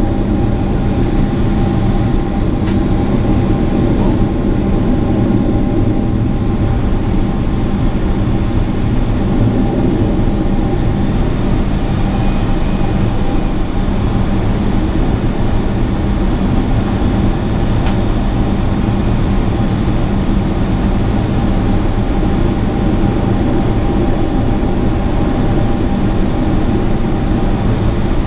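Boeing 777 cabin noise at a window seat beside its GE90 turbofan engine on approach: a steady, loud drone of engine and airflow, with a few steady hum tones running through it.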